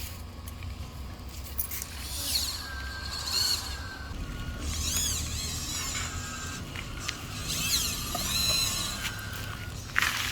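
Small electric motors of radio-controlled construction trucks whining, their pitch rising and falling several times as they speed up and slow down, over a low hum. A sharp knock near the end.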